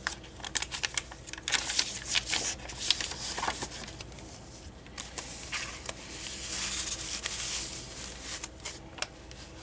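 Paper pages of a handmade junk journal being turned and handled, a booklet of coffee-dyed paper among them: rustling and flapping with many small ticks and taps.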